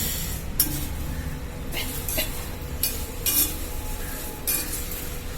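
Spoon stirring puffed rice (pori) in a pan with tempered spices, off the heat: dry rustling and scraping in short strokes, several times.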